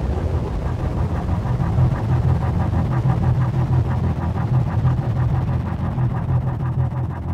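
Outro sound design under an end screen: a steady low droning rumble with a fast, even pulsing texture above it.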